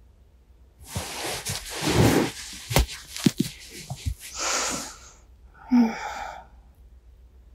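Futon bedding rustling and shifting right against a binaural microphone for about three seconds, with a few sharp clicks. Then comes a breathy exhale, and a short, low sleepy vocal murmur about six seconds in.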